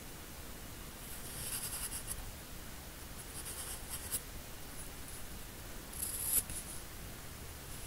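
Pencil strokes scratching on paper, in three short spells of drawing; the last, about six seconds in, is the loudest.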